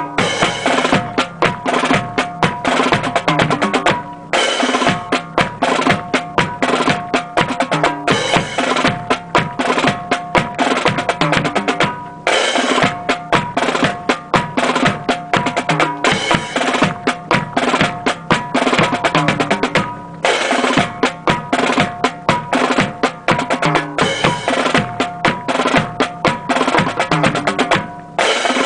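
Marching snare and bass drums playing a continuous cadence that keeps time for a rifle drill team on the march. The drumming runs in phrases of about four seconds, each closed by a short break.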